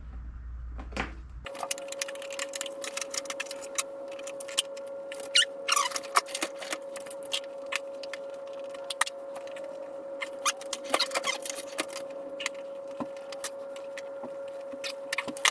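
Many quick clicks and clinks of small metal tools and parts being handled, over a steady mid-pitched hum that starts about a second and a half in.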